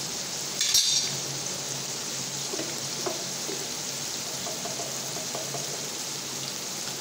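Pork and vegetables sizzling steadily in a wok on the heat, with a short clatter of metal about a second in.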